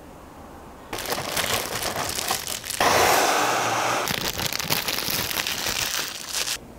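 Plastic packaging crinkling and crackling as it is handled, starting suddenly about a second in and stopping suddenly near the end, loudest for a second or so around the middle.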